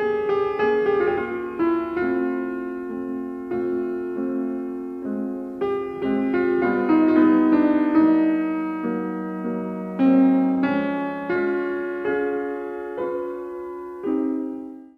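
Title music: a slow, gentle piano melody. The notes are struck one after another and left to ring, and the last one dies away at the end.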